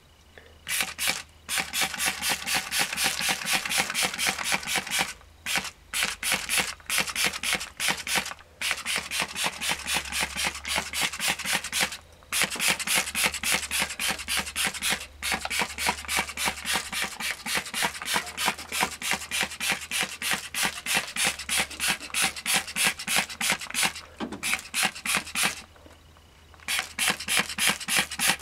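Trigger spray bottle of foaming degreaser pumped rapidly, spraying cleaner over a UTV engine in quick spurts, several a second, with a few short pauses between runs of squeezes.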